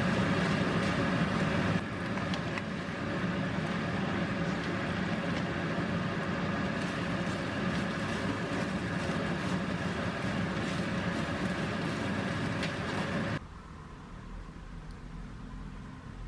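Kimchi tuna fried rice stir-frying in a pan on a gas stove: a steady sizzle and hiss, with a steady hum under it and the spatula scraping and tossing the rice. It cuts off abruptly near the end, leaving a quieter room sound.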